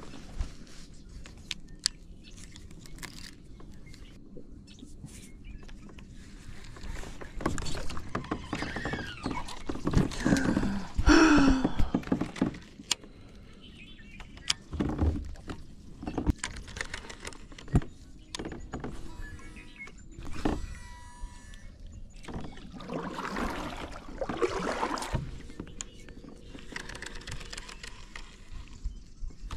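Someone shifting about in a plastic sit-on-top kayak: scattered knocks, clunks and rustles against the hull. The movement gets louder and busier twice, about eight to twelve seconds in and again around twenty-three to twenty-five seconds in.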